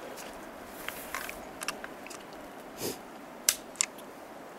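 Small metallic clicks and handling rustle of rifle cartridges being handled and loaded, a scattered run of soft clicks with two sharper ones near the end.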